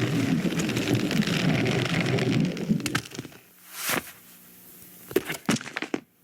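Animated-film sound effects with no music or dialogue: about three seconds of dense rumbling noise, then a quieter stretch with a brief rush of noise and a quick run of sharp clicks and knocks.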